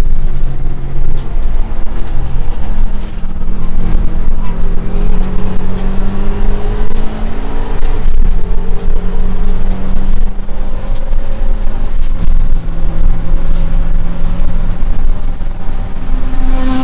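Subaru WRX race car's turbocharged flat-four engine, heard from inside the cabin, running loudly under hard acceleration. Its pitch rises slowly over several seconds, then drops lower and holds for a while later on, over a steady deep road rumble.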